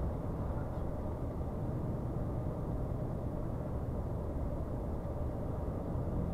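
Scania R580 truck's V8 diesel engine running steadily at a cruising speed of about 57 km/h, with a low, even rumble of engine and tyre noise.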